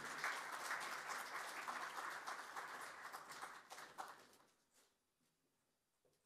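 Audience applauding, the clapping dying away about four seconds in, then near silence.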